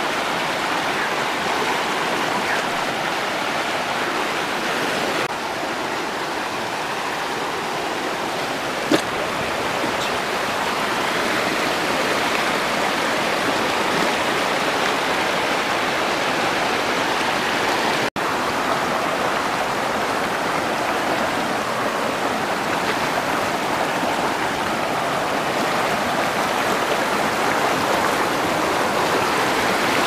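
Mountain stream rushing over boulders in small rapids: a steady, loud rush of white water. A single click about nine seconds in, and the sound cuts out for an instant just past halfway.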